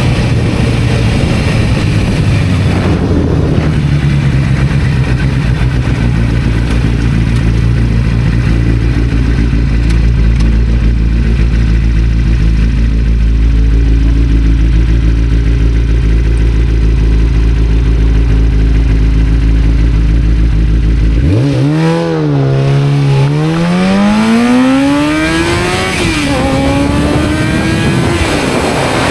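1991 Kawasaki ZZR-400's inline-four engine running at steady low revs with a deep rumble. About 21 s in it revs up as the bike accelerates, the pitch climbing and falling back at each gear change, about three times.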